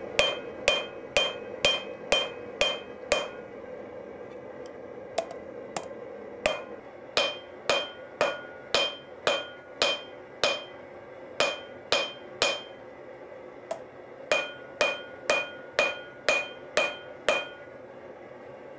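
Hand hammer striking red-hot leaf-spring steel on the edge of an anvil, forging down the blade to form an integral bolster. Three runs of blows, about two a second, each with a bright ring, separated by two short pauses.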